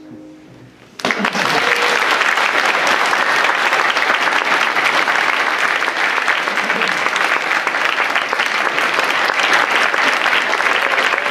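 The last chord on an upright piano fades away, then about a second in a room full of people breaks into applause, which goes on steadily.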